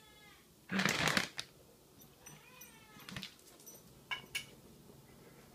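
Toy Yorkshire terrier whining in high, wavering whimpers, twice, with a loud short burst of noise about a second in and a few sharp clicks near the end.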